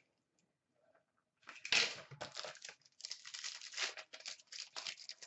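Hockey card box packaging being torn open and crinkled by hand: irregular ripping and rustling that starts about a second and a half in.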